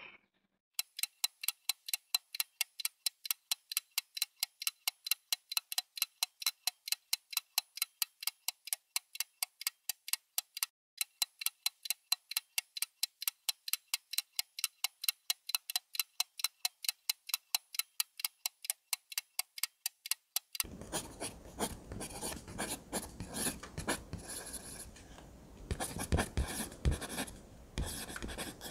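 Clock ticking sound effect, even sharp ticks about four a second. About twenty seconds in it gives way to irregular rustling and scraping.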